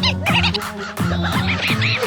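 Upbeat background music with a steady beat and bass notes, with short high squeaky sounds that rise and fall over it.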